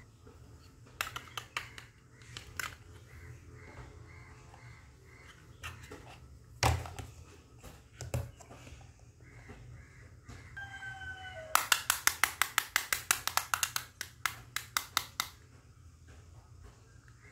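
Hard plastic toy cake slices clicking and knocking on a plastic tray as they are set in place, with a sharp knock about a third of the way in and a quick run of clicks, about five a second, in the last few seconds.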